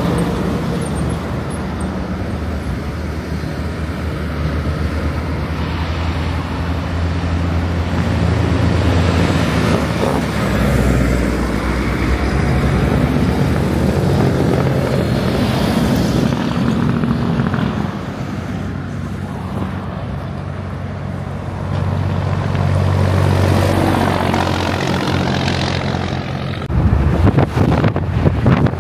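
Road traffic passing close by: heavy diesel trucks and lighter vehicles, engines running over tyre noise, swelling and fading as each goes past. Near the end, wind buffets the microphone as a tractor-trailer passes.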